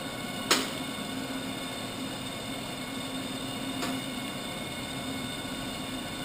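Gorelli 1.5" centerless grinder running steadily under power, a constant hum with several steady high tones from its grinding-wheel motors and coolant pump. A sharp click about half a second in and a fainter one a little before four seconds.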